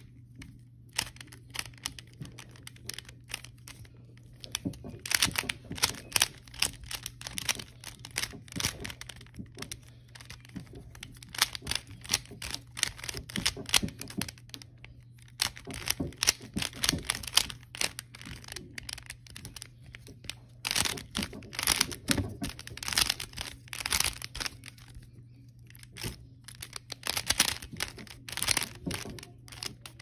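Plastic layers of a 3x3 Rubik's cube clicking and clacking as it is turned rapidly by hand during a solve, in quick flurries of clicks broken by short pauses. A steady low hum runs underneath.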